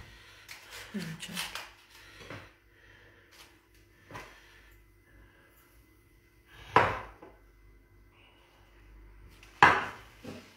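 Kitchen clatter at a stainless steel stockpot as artichokes are wedged in upright: light knocks and handling sounds, with two sharp knocks about seven and ten seconds in.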